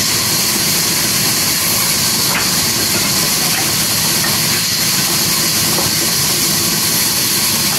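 Large sawmill band saw running and cutting lengthwise through a thick timber slab as it is fed past the blade: a loud, steady hiss.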